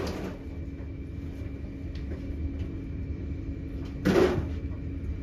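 Steady low rumble and hum of a moving train carriage heard from inside, with a sharp click at the start and a short, louder clatter about four seconds in from the catering trolley and galley being handled.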